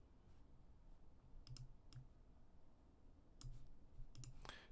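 Near silence with several faint, scattered computer clicks, a few of them close together near the end.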